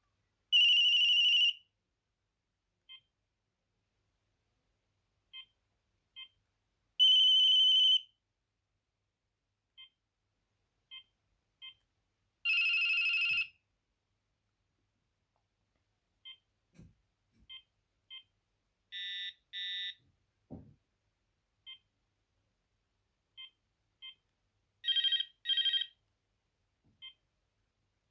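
Maxon MX-6869 mobile phone stepping through its ring-type list: about five short ringtone previews of roughly a second each, the later ones in two quick pulses. Short key beeps fall between them as the buttons are pressed.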